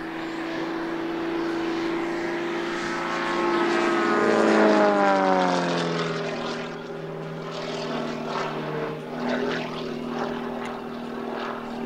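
Propeller-driven Extra aerobatic display plane flying past. The engine and propeller note swells to its loudest about four to five seconds in and drops in pitch as the plane passes, then carries on at a steadier, lower pitch.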